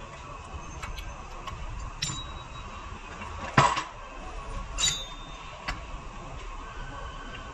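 A few separate sharp knocks and clinks over a steady low background hum, the loudest about three and a half seconds in.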